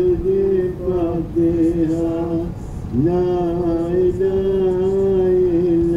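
Ilahi, an Islamic devotional hymn, sung with long held notes. The voice breaks off about two and a half seconds in, then slides up into a new note and holds it.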